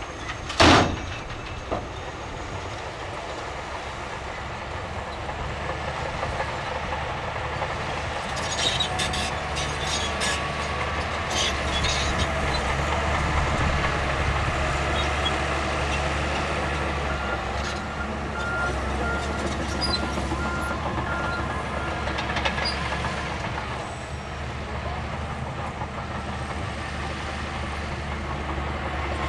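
Heavy diesel earthmoving machinery running steadily, with a sharp metallic bang about a second in and bursts of clanking and knocking in the middle. A faint repeating beep, like a reversing alarm, sounds around two-thirds of the way through.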